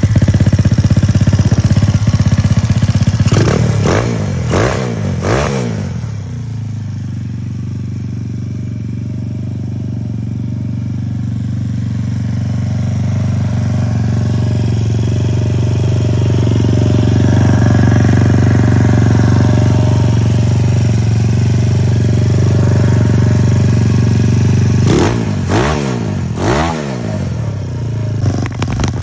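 GY6 four-stroke single-cylinder engine in a Honda Ruckus, running through a Yoshimura exhaust. It idles steadily and is blipped in a quick burst of revs a few seconds in and again near the end.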